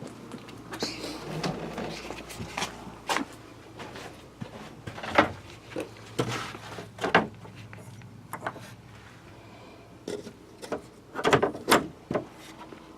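Irregular knocks and clunks, like objects being handled and set down, the loudest about five seconds in, about seven seconds in, and a quick cluster near the end, over a low steady hum.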